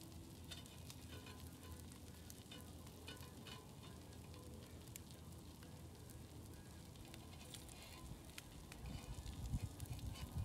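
Meat frying on a hot griddle: faint sizzling with scattered small crackles. Some louder low bumps come near the end.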